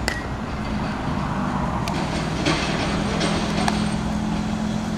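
A steady low hum with a few sharp knocks of baseballs hitting leather gloves during infield fielding practice.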